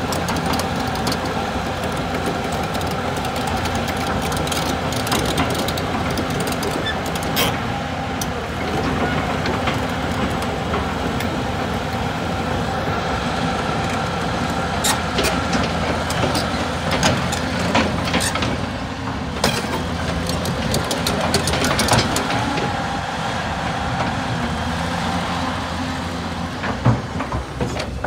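Hyundai Robex 450LC-7A crawler excavator travelling on its steel tracks: the diesel engine runs steadily under a steady high whine, with sharp clanks from the tracks now and then.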